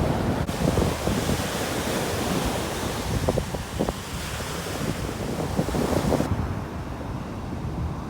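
Sea surf rushing on the shore with wind buffeting the microphone; the hiss of the surf drops away sharply about six seconds in.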